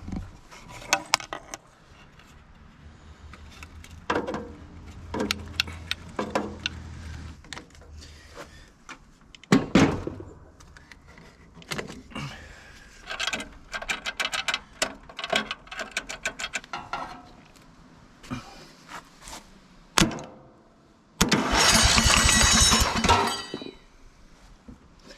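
Scattered clanks and clicks of hands working on a riding mower, then about 21 seconds in the mower's starter cranks the engine for about two and a half seconds with an even pulsing beat. The engine turns over but does not catch.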